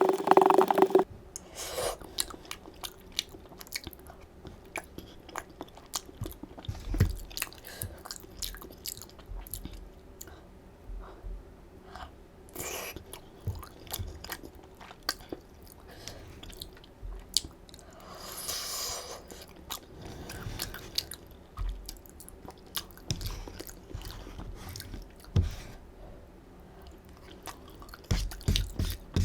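Close-miked chewing of chewy flat glass noodles in rosé Buldak sauce: wet mouth sounds and small clicks and smacks, uneven and continuous.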